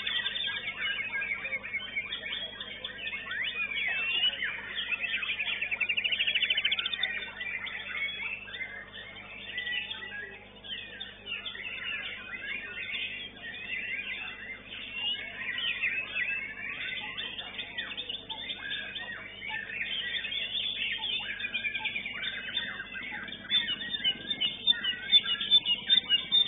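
White-rumped shama (murai batu) singing a fast, varied song of chirps and whistles, with quick runs of repeated notes about a quarter of the way in and again near the end, mingled with other shamas singing at the contest.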